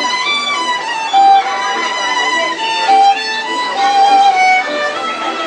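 Instrumental music: a single melody of held notes, played by what sounds like a bowed string instrument.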